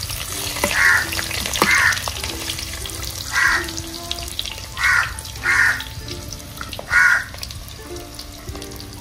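Sliced onions sizzling in hot ghee and oil in a clay pot, stirred with a steel spoon. A crow caws six times over the sizzle, each call short and loud.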